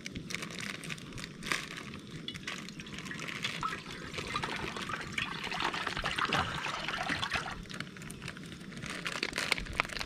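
Water being poured into a cooking pot, with small clinks and knocks.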